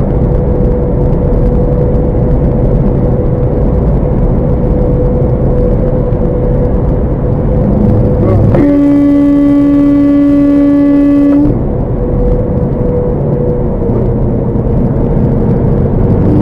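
Steady road and wind noise from a car at highway speed. About halfway through, a vehicle horn sounds one long, steady blast of about three seconds.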